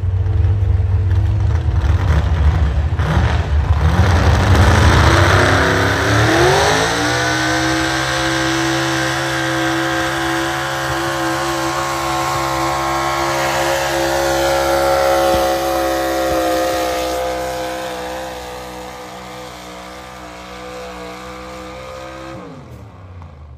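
High-powered pulling pickup truck's engine under full load dragging a weight-transfer sled: a heavy rumble, then the revs climb over a second or two to a high, held engine note that runs steadily before dropping away quickly near the end as the throttle comes off.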